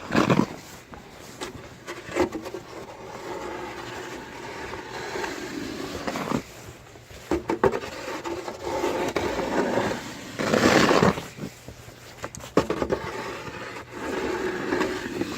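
Snow shovel scraping and pushing through snow in uneven strokes. There are a few sharp knocks, and loud swooshes right at the start and again about ten seconds in.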